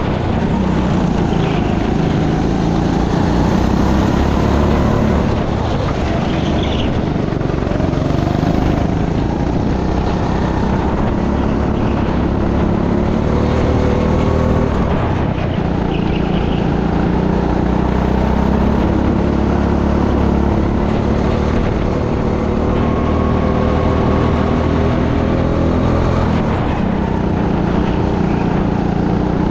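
Racing kart engine heard from on board, running hard throughout, its pitch rising and falling as the driver accelerates out of and lifts into the corners.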